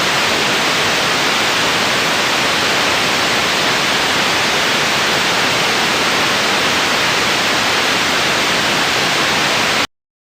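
Steady static hiss, even white noise at a constant level, that cuts off abruptly to silence near the end.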